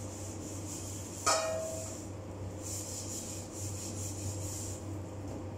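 Plastic-gloved hands rubbing and working raw ground meat in a bowl, a soft continuous rustle, over a steady low hum. About a second in there is one sharp clink that rings briefly.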